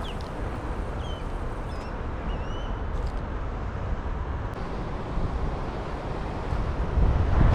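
Wind rumbling on the microphone, steady and growing stronger near the end, with a few faint high chirps in the first few seconds.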